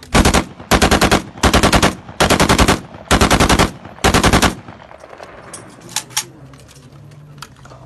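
AK-pattern assault rifle fired on full automatic in six short bursts of several rounds each, over about four and a half seconds. A few fainter single cracks follow.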